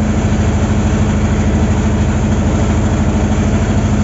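Boat engine running steadily with an even, rapid beat and a low hum.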